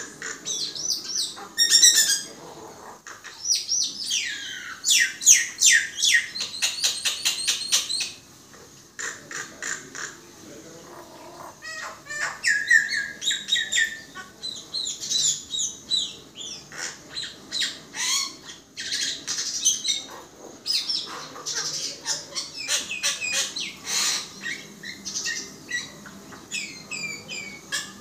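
Common myna singing a varied, busy song: sliding whistles mixed with quick runs of clicks, rattles and harsh squawks.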